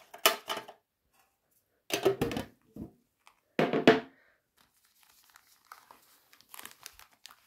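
Foil trading-card booster packs crinkling as they are handled and gathered, with three short loud crinkles in the first four seconds and fainter rustling after.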